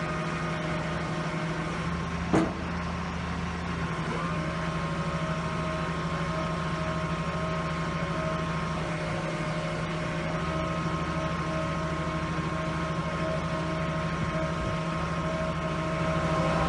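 Soilmec R-312 piling rig's diesel engine running steadily at idle, with a steady whine over it from about four seconds in. A single sharp knock comes about two and a half seconds in.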